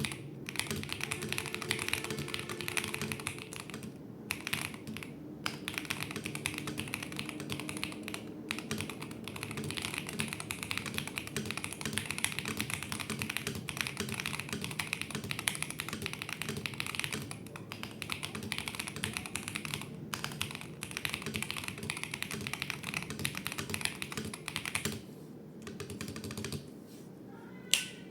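Typing on a Mchose Ace 68 Air mechanical keyboard with Kailh switches: a fast, continuous run of key clacks broken by a few brief pauses, with one louder clack near the end.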